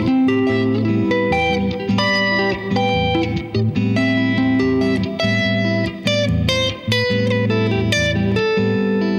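Clean electric guitar, Stratocaster-style, picking wide-spaced open triad shapes as a melody over a steady A minor groove, with reverb.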